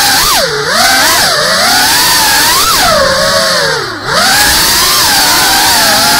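FPV quadcopter's electric motors whining, their pitch swooping up and down quickly as the throttle changes, dropping low with a brief dip in loudness about four seconds in.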